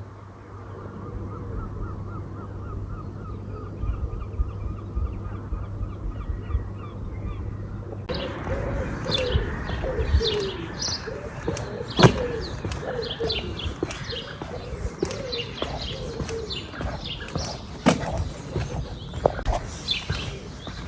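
Wild birds singing. At first faint repeated chirps sound over a steady low hum. After an abrupt change about eight seconds in, a louder chorus of chirping song follows, with a run of low repeated calls and two sharp knocks.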